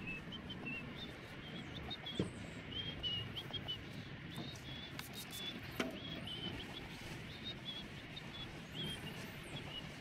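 Small birds chirping over and over in short, high notes. A sharp knock comes about two seconds in, and another just before six seconds.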